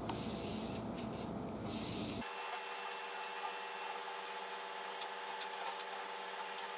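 A plastic card rubbed in strokes over a wet vinyl sticker on aquarium glass, squeegeeing out trapped water and air bubbles: faint scraping and rubbing.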